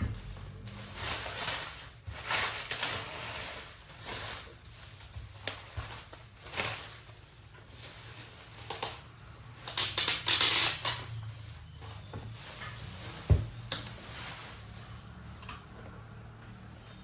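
Packaging being handled while unboxing a keyboard: irregular bursts of rustling, the longest and loudest about ten seconds in, with a single sharp knock a few seconds later.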